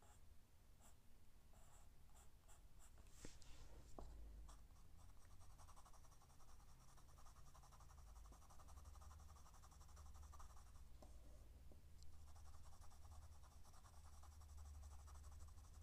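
Graphite pencil shading on paper: faint, quick back-and-forth scratching strokes, with a short pause about eleven seconds in.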